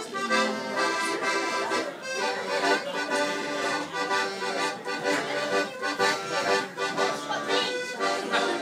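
Piano accordion played live: a tune over held chords, with a regular pulse.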